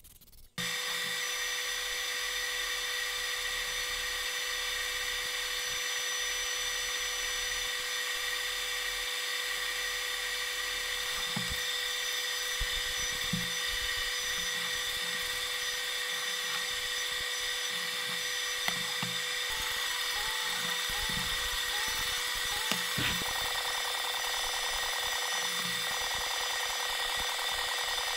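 A steady machine whine with a constant hiss, like an electric motor or fan running, starting abruptly just after the beginning. A few faint knocks and handling thuds sound over it.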